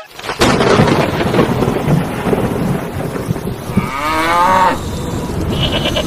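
A sudden thunder crack about a third of a second in, followed by rumbling thunder over a steady hiss of rain. About four seconds in, a cow moos once.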